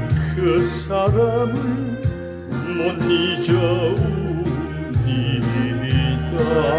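Music: an instrumental passage of a Korean ballad, a wavering lead melody over a steady bass line and drums.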